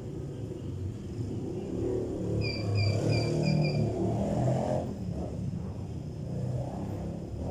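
Low rumble of a motor vehicle passing, swelling to a peak in the middle and easing off. Four short, high chirps come in quick succession near the middle, about three a second.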